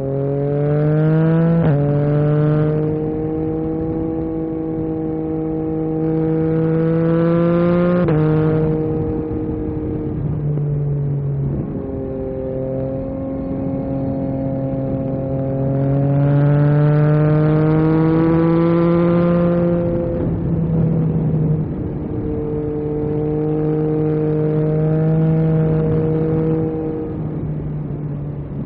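2022 Yamaha MT-09 SP's 890 cc inline-three engine through an Akrapovic carbon exhaust, pulling through the gears: its pitch climbs and drops sharply at three upshifts in the first dozen seconds, then holds a steadier cruise with small changes in pitch.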